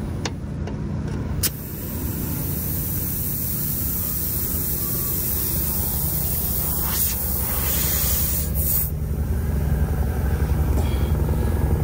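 Compressed air hissing from an air hose into a flat truck tire, starting about a second and a half in and swelling twice near the middle, over the steady idle of a semi truck's diesel engine.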